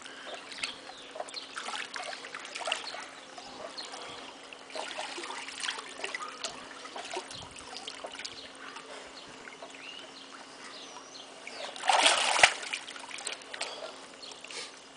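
Pool water sloshing and trickling as a fully clothed person wades to the edge, with a louder splash about twelve seconds in as he hauls himself out onto the edge and water runs off his soaked clothes. A faint steady hum sits underneath.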